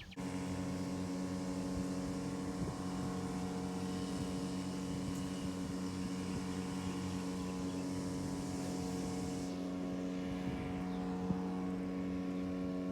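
An engine or motor running at a steady speed, with a constant hum.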